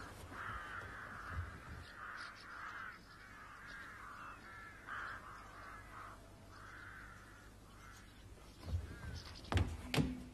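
Birds calling in a run of short, wavering calls for about seven seconds, followed by a few thumps near the end.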